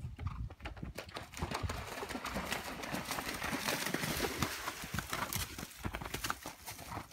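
A horse's hoofbeats, with hooves splashing as it canters through shallow water, the splashing heaviest in the middle.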